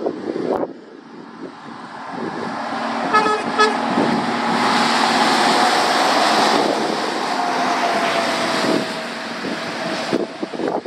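A lorry passing close by, its tyre hiss swelling and then fading away, with a quick run of short horn toots about three seconds in. Wind buffets the microphone at the start.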